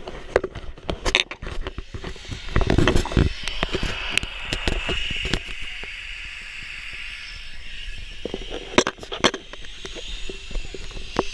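Crackling and scraping handling noise from a nylon parachute canopy bundled in the arms, rustling against a head-mounted camera, with wind buffeting the microphone in a low rumble around three seconds in.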